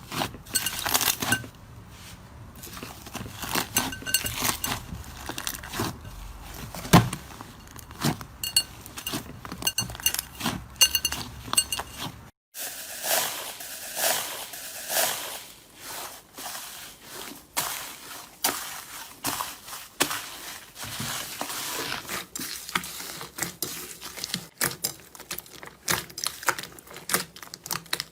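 Slime being squeezed, pressed and poked by hand, making dense crackling and small clinking pops. The texture changes abruptly about twelve seconds in, to a denser, finer crackle.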